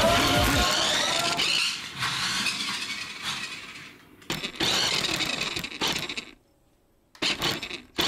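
Radio-controlled toy car running across a wooden floor, its small motor and wheels rattling, with the jingle bell on its cat-teaser jingling. The sound stops briefly a little after four seconds and again for most of a second near the end.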